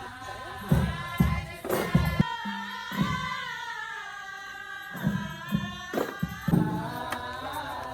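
Several voices singing together, with short drum strikes in between.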